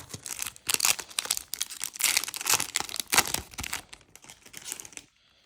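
Foil Yu-Gi-Oh booster pack wrapper being torn open and crinkled: dense crackling for about four seconds that thins out and stops near the end.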